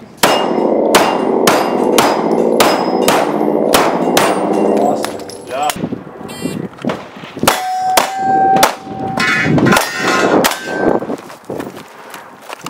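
A string of pistol shots, fired about twice a second at first and more irregularly later, with steel targets ringing as they are hit.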